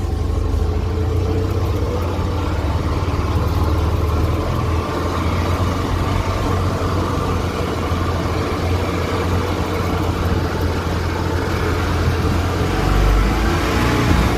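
Steyr Puch Haflinger's air-cooled flat-twin engine running steadily as the little 4x4 drives along, with a louder low surge near the end.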